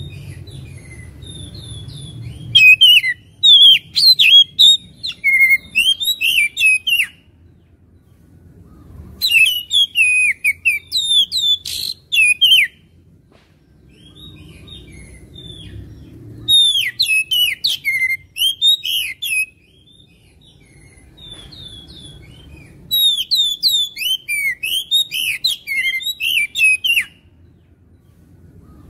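Oriental magpie-robin (kacer) song: four bouts of rapid, varied chirps and whistles, each a few seconds long with short pauses between, over a faint low background noise.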